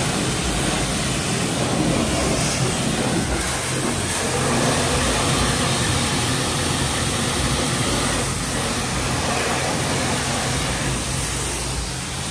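High-pressure car-wash wand spraying water onto a pickup truck's wheel and tyre: a loud, steady spray hiss over a steady low hum.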